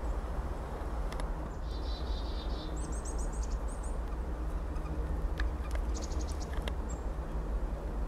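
Pileated woodpecker tapping at birch bark, a few scattered sharp taps rather than a steady drum, over a steady low rumble. A small bird trills high and quickly about two seconds in, with more high notes about six seconds in.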